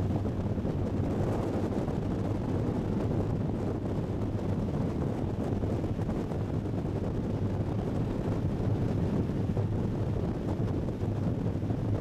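Boat engines running steadily at speed on open water, a constant low hum, with wind buffeting the microphone and water rushing past the hull.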